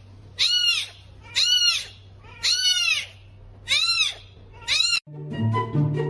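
An animal crying out five times, about once a second, each cry rising and then falling in pitch; music starts abruptly near the end.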